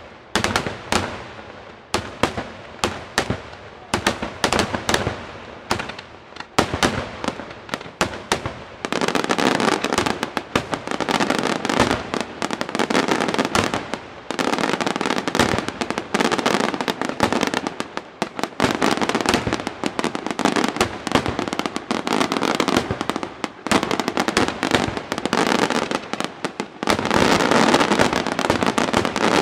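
Daytime fireworks: aerial shells bursting overhead in quick succession. Separate sharp bangs, several a second, give way about nine seconds in to a dense barrage of rapid bangs and crackle, which grows louder again near the end.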